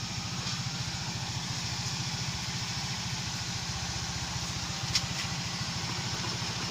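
Toyota Corolla Altis's 3ZZ-FE four-cylinder engine running steadily with an even, rapid low pulsing, while being checked for an inner CV joint noise. A single short click about five seconds in.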